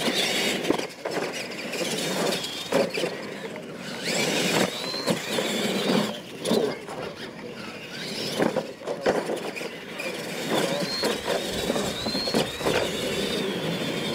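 Electric R/C monster trucks racing flat out over dirt and small ramps: motor whine rising and falling with the throttle, with repeated knocks as the trucks hit and land off the ramps.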